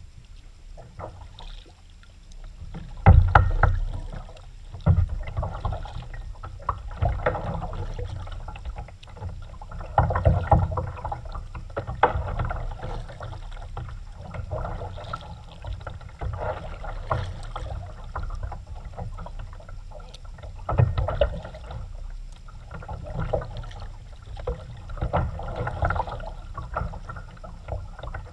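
Kayak paddle strokes in water: the blade dips and pulls with a splash and drip about every two to three seconds, over a low rumble. The loudest stroke comes about three seconds in.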